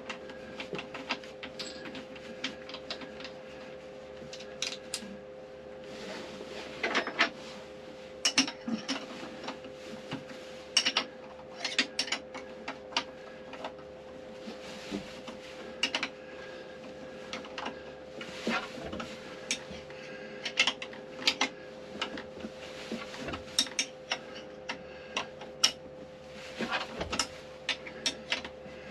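Irregular small metallic clicks and taps as a new zinc anode's bronze plug is threaded into a Beta Marine diesel's heat exchanger and tightened with a 14 mm wrench, over a steady hum.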